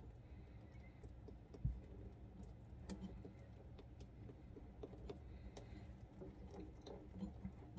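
Faint scattered clicks and light taps from handling the faucet supply hose fittings under the sink, with one dull thump just under two seconds in.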